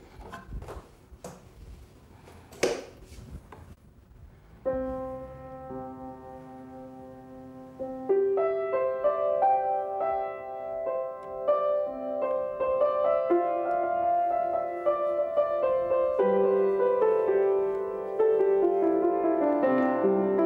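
A few sharp knocks and clicks, then an upright piano being played: soft notes begin about five seconds in and the playing grows louder from about eight seconds, with held chords and a moving melody.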